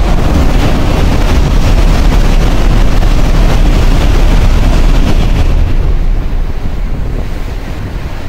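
N700-family Shinkansen train running through the station at speed on the through track: a loud rushing roar with wind buffeting the microphone, easing off after about five and a half seconds.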